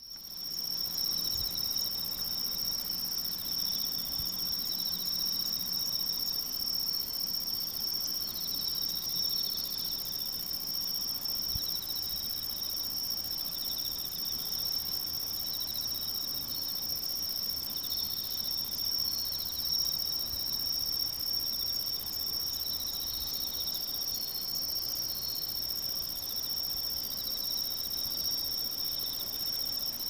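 Autumn insects singing at night: one continuous, high-pitched trill holds steady throughout, while a second insect calls in short phrases just below it every second or two.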